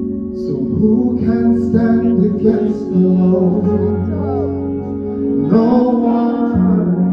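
Live church worship music: a lead vocalist singing over the worship band's steady held chords and guitar.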